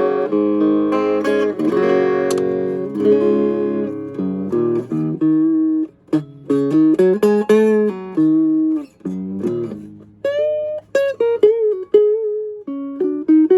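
Vintage Silvertone hollowbody electric guitar played clean: ringing chords at first, then single picked notes. From about ten seconds in, several notes are bent up in pitch.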